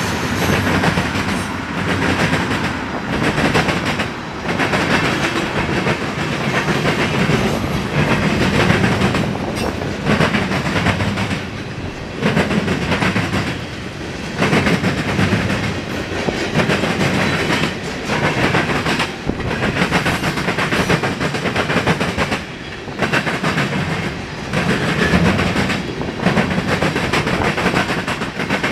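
Freight cars of a manifest train, mostly tank cars with a covered hopper, rolling past at speed: a steady steel-wheel rumble that dips and swells every second or two as the cars go by.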